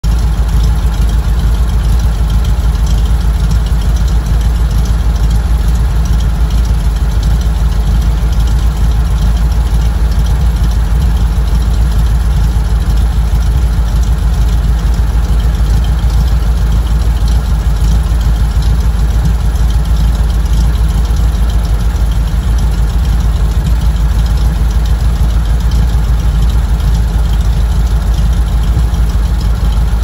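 Two air-cooled flat-four engines idling together: a 1720cc Porsche 912 engine and a 1488cc VW 36hp engine with Okrasa-style heads and dual Weber 40 IDF carburettors. A steady idle with no revving.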